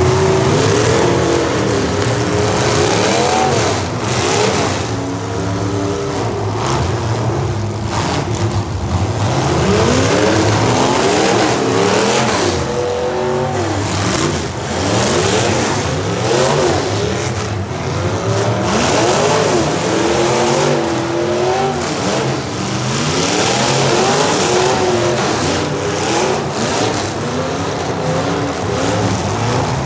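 Several demolition derby cars with modified engines revving hard up and down at once. Repeated sharp knocks and crunches of cars colliding cut through.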